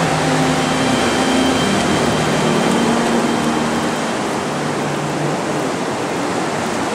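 Sea surf breaking and washing up a sand beach: a steady, loud rush of waves.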